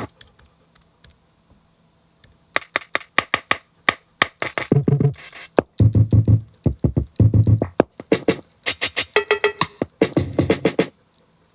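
Drum sounds from an OP-1 synthesizer: after a quiet opening of about two and a half seconds, a beat of sharp clicks and deep kick-drum thumps is played. It stops about a second before the end.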